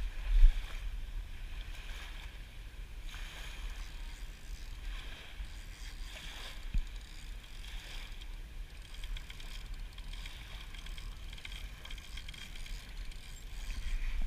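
Wind rumbling on the microphone over a faint wash of small waves on the beach, with a low thump about half a second in and a smaller one near seven seconds.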